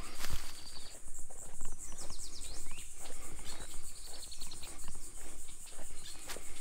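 Steady, high, pulsing insect chorus, with a bird chirping in quick downward notes and footsteps on a trail.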